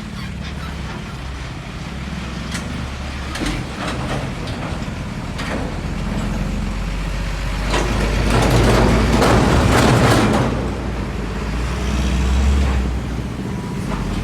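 Heavy trucks on a road: a steady low diesel-engine rumble, with the noise swelling loudest as a truck passes close about eight to ten seconds in, and again more briefly near the end.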